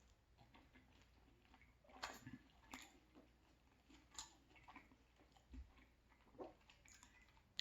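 A person chewing pizza close to the microphone: faint, scattered wet mouth clicks, the loudest about two seconds in.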